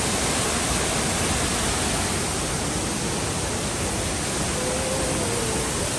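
Oboadaka Falls, a waterfall, giving a steady, even rush of falling water.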